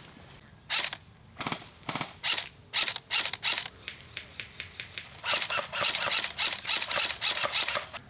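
Airsoft rifles firing: separate single shots spread through the first few seconds, then quicker strings of sharp snapping shots from about five seconds in.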